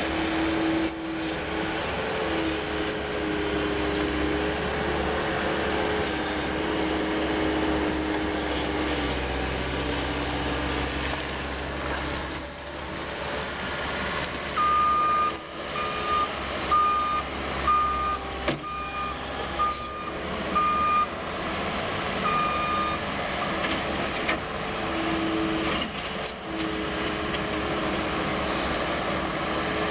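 New Holland L230 skid steer loader's diesel engine running, its tone shifting slowly up and down. About halfway through, its reverse alarm gives a run of evenly spaced high beeps, roughly one and a half a second, for several seconds.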